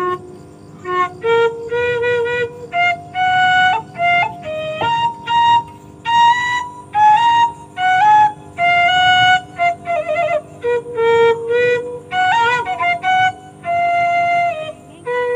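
Background music: a flute plays a melody of separate held notes, some wavering or sliding in pitch.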